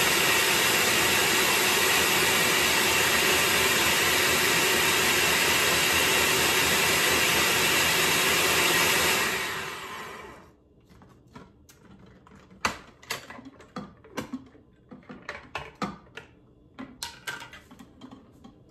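Electric NutriBullet spiralizer's motor running steadily as zucchini is pushed through it, winding down and stopping about nine seconds in. After that, a scattering of light clicks and knocks.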